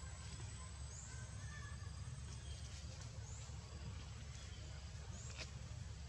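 Outdoor ambience: a steady low rumble and hiss, with a short, high chirp repeating about every two seconds.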